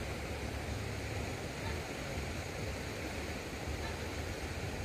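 Steady rush of flowing stream water, an even hiss over a low rumble, with no separate splashes or knocks.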